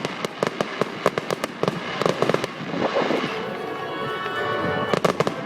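Display fireworks going off as a rapid crackle of many sharp bangs, thinning out about halfway through, with a few more cracks near the end. Music with steady held notes plays underneath.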